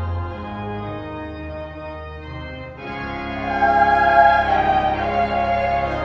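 Organ holding sustained chords; about halfway through, treble voices of a two-part choir come in singing over the organ, and the music grows louder.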